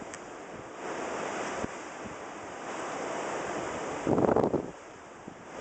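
Strong wind blowing over the microphone with waves in the background, and a loud burst of noise about four seconds in, lasting about half a second.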